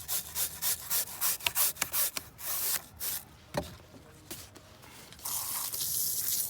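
A blade scraping a raw salmon fillet in quick strokes, about five a second, to clear off the slime and fishy residue. The scraping eases off, and a steady hiss of running water for rinsing starts about five seconds in.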